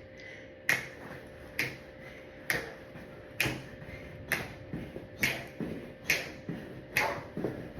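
A person making sharp clicking sound effects, one about every second in a steady rhythm, eight in all, with softer clicks creeping in between them over the second half.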